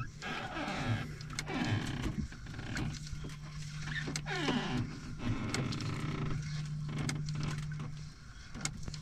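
Nylon handline being hauled in hand over hand against a strongly pulling fish, with short swishing and rasping sounds from the line. A steady low hum runs underneath and drops out near the end.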